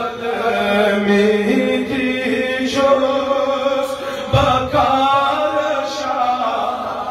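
A man's voice reciting a naat, an Urdu devotional poem in praise of the Prophet, sung unaccompanied in a melodic chanting style with long held notes.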